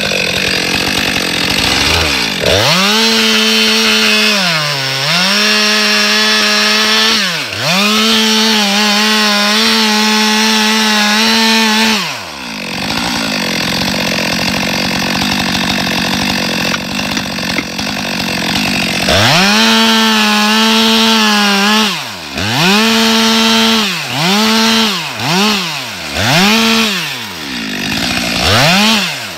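Stihl MS 462 C two-stroke chainsaw cutting a log into rounds, run at full throttle in long pulls with brief drops in pitch. In the middle it runs rougher and lower for several seconds, and near the end it is blipped up and down about five times in quick succession.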